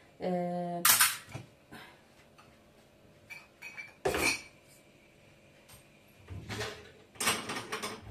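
Dishes and pans being handled and set down at a kitchen sink, clattering and clinking several times; one knock about four seconds in leaves a brief ringing tone. A short steady pitched tone opens the sound.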